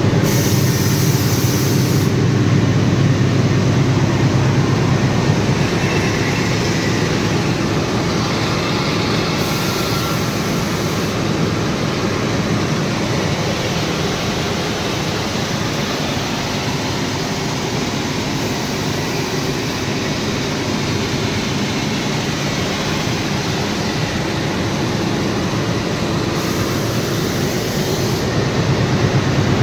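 Diesel engine of a railway locomotive running steadily at full notch, a loud deep drone with hiss above it.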